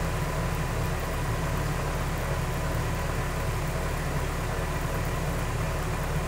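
Steady low rumble and hum of a vehicle, even in level throughout.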